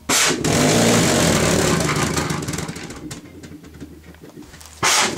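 Homemade jam-jar pulse jet burning methylated spirit, running with a rapid popping as the flame reignites several times a second. It starts abruptly and fades over a few seconds, then surges loud again near the end.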